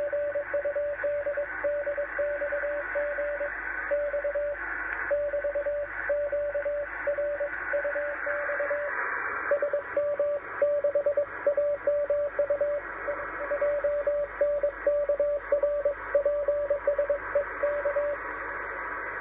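Morse code (CW) on the 10-metre amateur band, heard through a radio receiver: a single steady-pitched tone keyed on and off in dits and dahs over constant band hiss. The keying stops near the end, leaving only the hiss.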